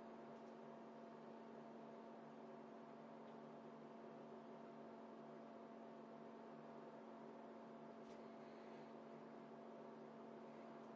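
Near silence: a steady, faint electrical hum of room tone, with a faint tick about half a second in and another about eight seconds in.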